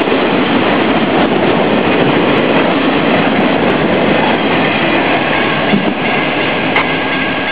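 Autorack freight cars rolling past, their wheels clacking steadily over the rails. Faint steady high tones come through near the end, from the crossing's malfunctioning electronic bell.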